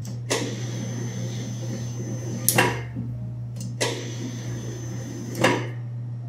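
Electric pastry dough sheeter running with a steady motor hum while a sheet of butter-and-flour is rolled through it, with four sharp clunks from the machine about a second or two apart.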